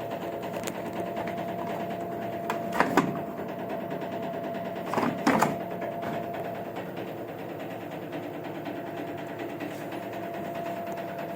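LG direct-drive washing machine running with a steady motor hum and whine, broken by two short bursts of knocking about three and five seconds in. The knock is the one the repairer traces to the cabinet rotted through at the shock-absorber mount, letting the drum swing hard, with the bearings still sound.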